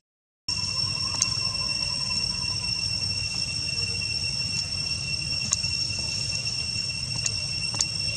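Steady, unbroken high-pitched insect drone over a low rumble of background noise, with a few faint clicks. The sound drops out completely for half a second at the start.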